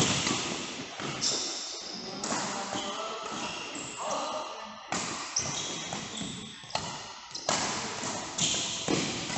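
Badminton rackets striking a shuttlecock in a rally: a string of sharp hits, irregularly spaced a second or more apart.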